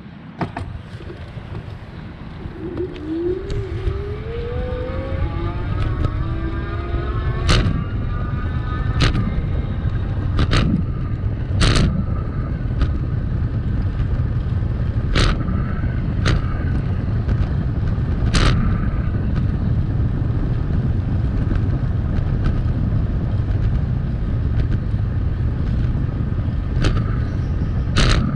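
Riding a bicycle: a steady low rumble of wind and road noise, with about a dozen sharp knocks at irregular intervals and a rising whine a few seconds in.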